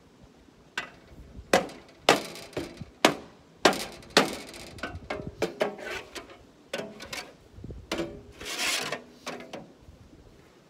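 A series of irregular sharp knocks and clatters, about a dozen, with a longer noisy rush lasting about a second near the end.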